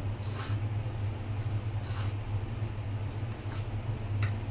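Hands kneading crumbly flour dough in a steel bowl: a few soft rustling pushes, with light clinks of bangles, over a steady low hum.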